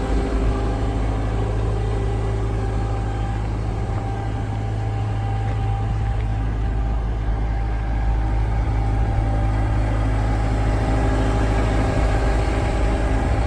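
Diesel engine of a 2018 Toyota Huski skid steer loader, a Toyota 1DZ-II four-cylinder, running steadily at a constant speed with a deep low rumble.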